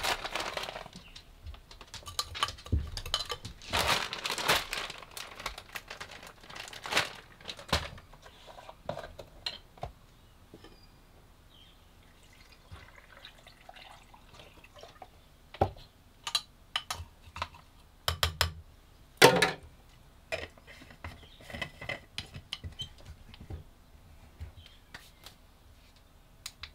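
A plastic zip bag crinkles as frozen berries are tipped from it into a plastic blender jar, with many small clicks and rustles. Oat milk is then poured in quietly, and a run of clicks and knocks follows as the jar is handled and its lid put on; the sharpest knock comes about two-thirds of the way in.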